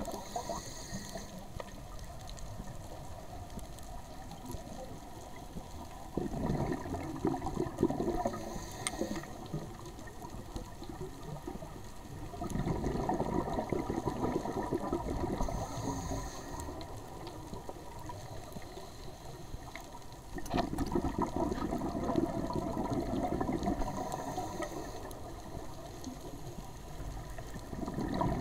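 Scuba diver breathing through a regulator underwater: a short hiss of each inhalation, then a longer burst of exhaled bubbles, repeating about every seven to eight seconds, four breaths in all.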